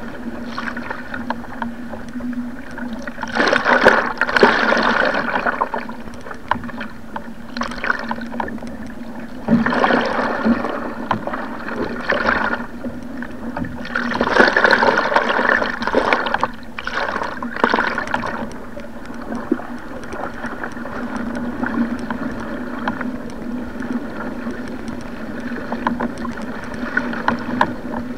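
Sea water rushing and splashing against a surfski being paddled downwind in rough, wind-driven waves. Louder surges of rushing spray come four times, as the boat runs on waves.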